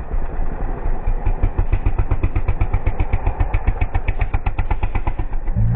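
Single-cylinder 250cc enduro motorcycle engine idling with an even putting beat. Right at the end a deeper, louder engine note comes in.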